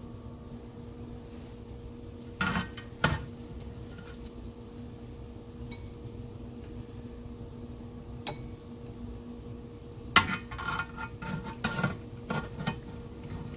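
Cookware and metal utensils clinking and clattering: two knocks about two and a half and three seconds in, another near eight seconds, then a run of clinks from about ten to thirteen seconds, over a faint steady hum.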